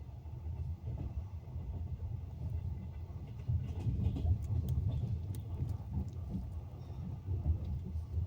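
Passenger train carriage rolling on the rails, heard from on board: a steady low rumble that grows louder about three and a half seconds in, with a run of sharp clicks and knocks in the middle.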